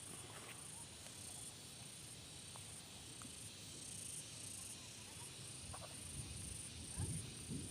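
Faint, high-pitched insect trilling that comes and goes in short spells, over low background rumble, with a soft low thump about seven seconds in.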